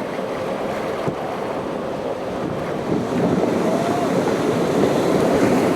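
Ocean surf rushing with wind buffeting the microphone, growing louder about three seconds in.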